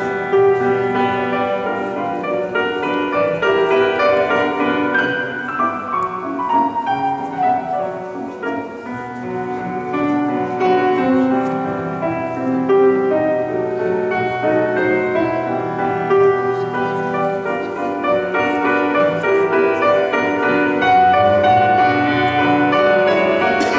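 Instrumental piano music, slow and classical in style, with held notes and a falling run of notes about six seconds in.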